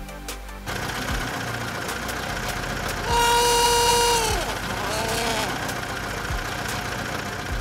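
Dubbed vehicle engine sound effect running under a toy truck being pushed along. About three seconds in, a loud held note slides down in pitch, and a weaker falling note follows a second later.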